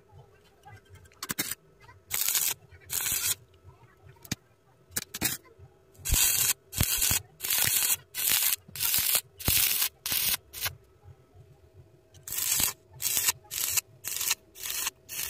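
Stick-welding arc on thick steel angle iron, crackling and hissing in short bursts of about half a second, the arc going on and off again and again in quick succession.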